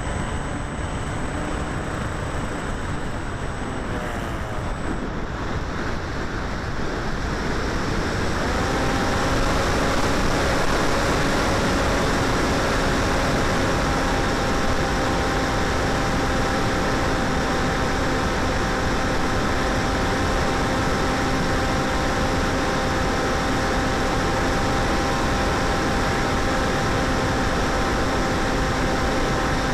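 Onboard in-flight sound of a 900mm Popwing foam flying wing: wind rushing over the camera microphone with the electric motor and propeller whining. The whine shifts in pitch, then about a quarter of the way in grows louder and settles into a steady tone for the rest.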